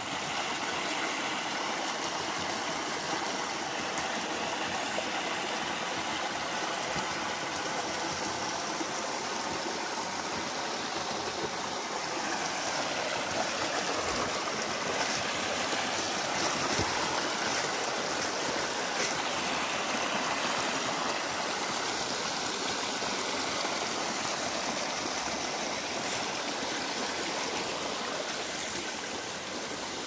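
Shallow mountain stream running over rocks and small cascades: a steady wash of water noise.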